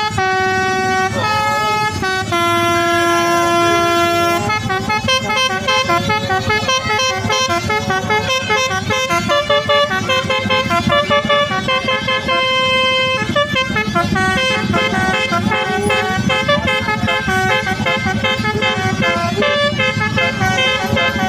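Indonesian 'telolet basuri' musical bus horn playing a tune: two short notes, a long held note, then a quick run of changing notes.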